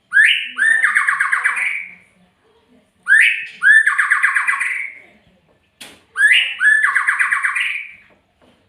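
A murai, a Copsychus magpie-robin or shama, giving three harsh rattling calls about three seconds apart, each a short rising note followed by a fast buzzy rattle lasting about two seconds. A brief click comes between the second and third calls.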